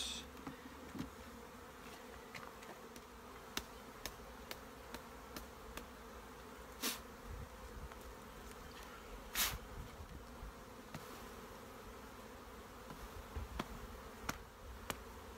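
Honeybees buzzing around an open hive: a steady hum, broken by scattered light clicks and two louder short sounds of honey frames being handled, about seven and nine and a half seconds in.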